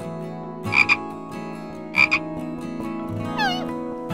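A frog croaking twice, each croak a quick double pulse, over steady background music; near the end a meow-like animal call falls in pitch.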